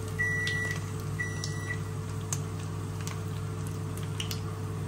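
Samosas frying in a pan of hot oil, a faint sizzle with occasional small pops, over a steady electrical hum from the kitchen. Two short high beeps, about half a second each, sound in the first two seconds.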